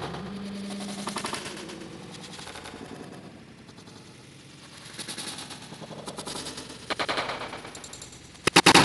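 Bursts of rapid, closely spaced rattling clicks like machine-gun fire, the loudest and densest burst coming near the end.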